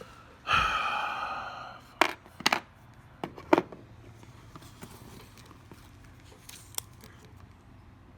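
A long, breathy sigh, then four sharp clicks and taps of small repair tools on the phone and bench about two to three and a half seconds in, with a faint tap near the end.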